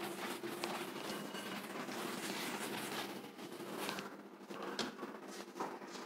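Cloth duster rubbing across a chalkboard, wiping off chalk writing with steady scrubbing strokes that die down about three seconds in.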